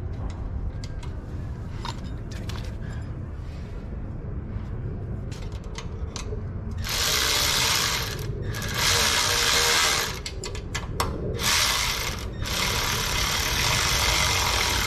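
Milwaukee cordless electric ratchet whirring as it runs down the nuts holding an aircraft engine muffler, in four bursts starting about seven seconds in, the last the longest. Before that, small clicks and taps of hand work on the fittings.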